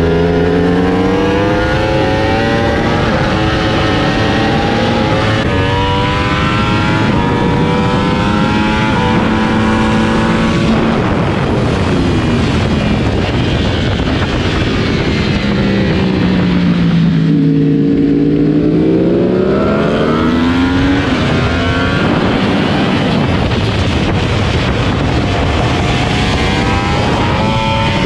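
Superbike engine at full throttle, its pitch climbing and breaking at each upshift, under heavy wind rush on an onboard camera. In the middle the revs fall away as the bike slows for a corner, then climb again as it accelerates out.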